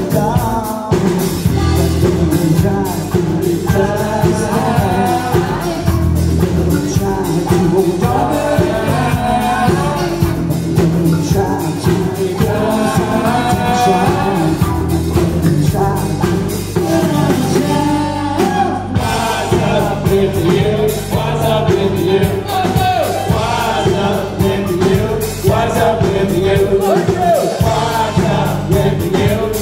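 Live rock band playing loud and steady, a male lead singer over electric guitar and a beat.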